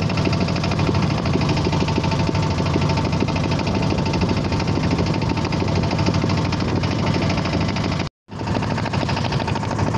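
Small fishing boat's engine running steadily under way with a fast, even pulse, mixed with water rushing along the hull. The sound cuts out briefly about eight seconds in.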